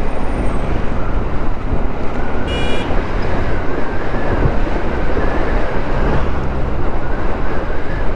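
Motorcycle on the move in traffic, heard from the rider's camera: a steady rush of wind on the microphone mixed with engine and road noise. A brief high tone sounds about two and a half seconds in.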